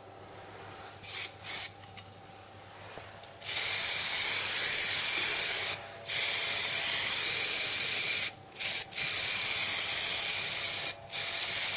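Aerosol can of copper weld-through primer spraying onto bare steel panel faces: two short puffs about a second in, then several long sprays of about two seconds each, broken by brief pauses.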